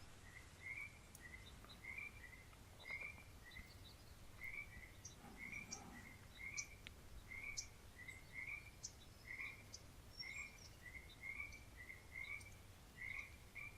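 Faint nature ambience of small animals calling: short chirps repeating about twice a second, with a few faint higher clicks among them.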